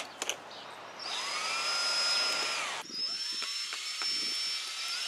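Cordless DeWalt drill/driver working screws in a PVC pipe frame: two runs of about two seconds each. Each run opens with a rising whine as the motor spins up, then holds a steady high whine. In the short pause before the first run there are a couple of small clicks.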